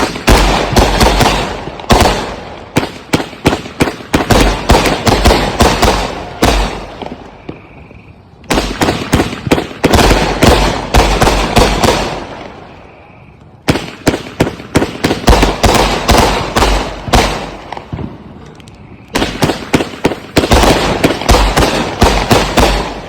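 Consumer multi-shot firework cakes firing rapid volleys of sharp bangs. The volleys come in four bursts of several seconds each, separated by short pauses.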